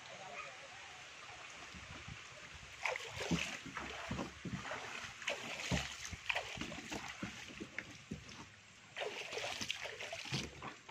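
Irregular splashing and sloshing of water and mud, starting about three seconds in, with a short lull near the end before it picks up again.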